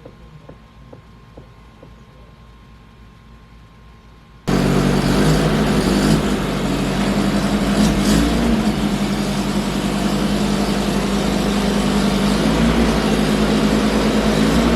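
Vehicle engine running steadily and loudly, starting abruptly about four and a half seconds in after a few faint ticks in the quiet. The engine is most likely the 1987 Toyota 4Runner's.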